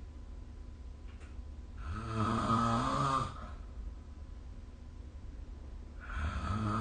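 A sleeping person snoring: two snores about four seconds apart, the first about a second and a half long with a pitch that rises and falls, the second starting near the end.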